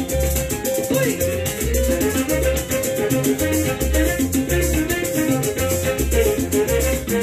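A pair of maracas llaneras shaken in a steady salsa rhythm over recorded salsa music with a repeating bass line.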